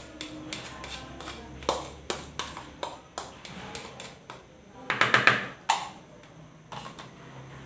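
Yogurt being scooped and tapped out of a plastic tub into a plastic mixing bowl: a string of light taps and scrapes, with a louder cluster of knocks about five seconds in.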